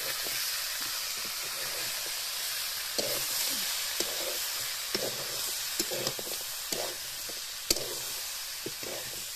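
Chicken curry with freshly added chopped tomatoes sizzling in a metal wok, a steady frying hiss. From about three seconds in, a metal spatula stirring knocks and scrapes against the pan about once a second, the sharpest knock near the end.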